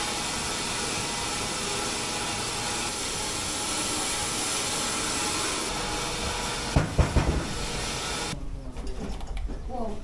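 Horse-driven sawmill machinery running with a steady mechanical hiss and rattle, with a few loud clanking knocks about seven seconds in. The machinery noise cuts off suddenly about eight seconds in, leaving a much quieter background.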